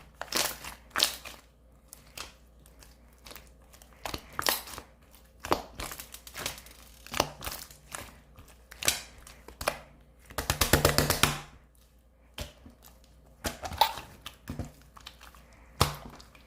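Clear slime being squeezed and pressed by hand, giving irregular bursts of sticky clicks and pops, with a rapid run of clicks about ten seconds in.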